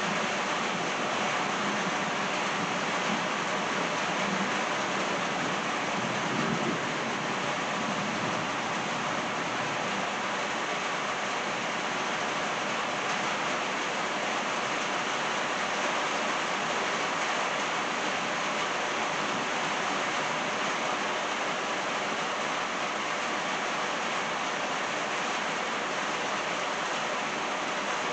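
Steady rain falling on a paved driveway and trees, an even hiss of drops. In roughly the first several seconds a low rumble of rolling thunder lies under it and fades out.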